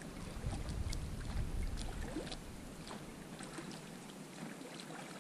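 An inflatable boat being rowed: light splashes and small knocks from the oars and hull. Wind rumbles on the microphone for the first couple of seconds.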